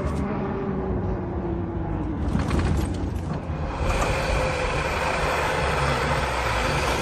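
Vehicle engine running while driving off-road, a steady rumble with road and wind noise. The sound changes abruptly about four seconds in.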